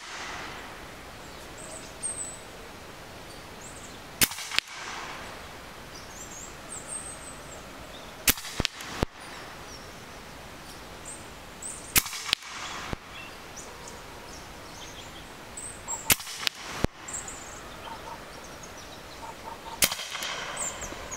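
EDgun Leshiy 2 semi-automatic PCP air rifle fired five times at an even pace, about one shot every four seconds, emptying the magazine. Each sharp shot is followed within a second by a fainter click or two.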